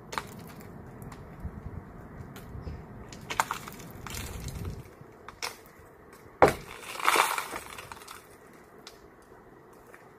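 A tool knocking and scraping against a glazed door, with glass cracking and crunching. The loudest sharp crack comes about six and a half seconds in, followed straight after by a crackling burst of breaking glass.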